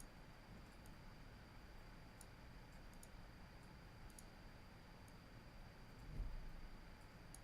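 Faint computer mouse clicks, a handful spaced a second or so apart, over quiet room tone with a faint steady high whine; a soft low thump about six seconds in.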